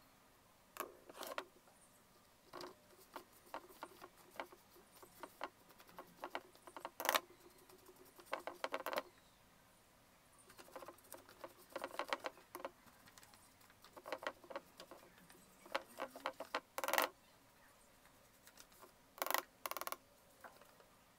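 A sheet of paper rustling and crinkling in short crackly bursts every second or two as it is bent to tip ground yellow pigment powder into a small dish, with a paintbrush sweeping the powder off the paper.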